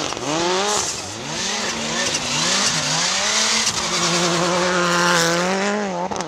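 Rally car engine pulling hard through the gears: its pitch climbs and drops back several times in quick succession, then holds a long high note before falling away near the end, over a steady hiss.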